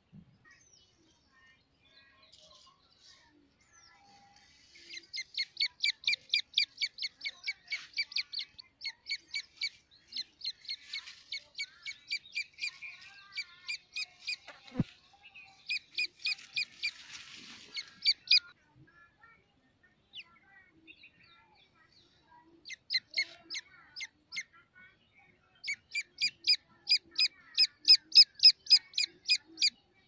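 Grey francolin chick peeping: long runs of short, high peeps, about five a second, in three bouts with short pauses between.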